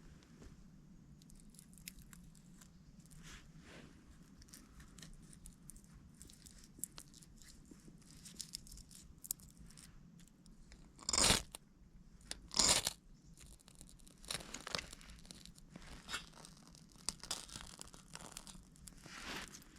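Scattered crunching and crackling, with two louder, longer crunches about eleven and twelve and a half seconds in.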